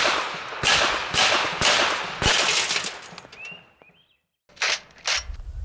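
A rapid string of about five shots from a BinTac T9 semi-automatic .357 PCP air pistol, roughly half a second apart, with .357 pellets hitting a concrete cinder block. Two more sharp cracks come near the end.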